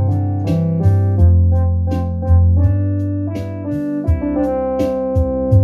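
Electronic home console organ played with both hands: chords with sharp attacks, struck about twice a second, over held bass notes.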